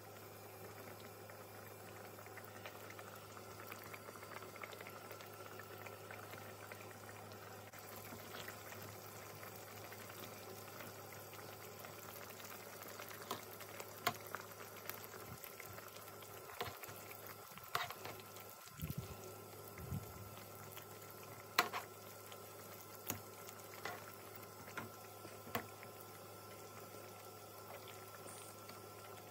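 Thick chicken tikka masala sauce simmering in a pan with a faint, steady bubbling. In the second half a few sharp pops stand out, spaced a second or more apart.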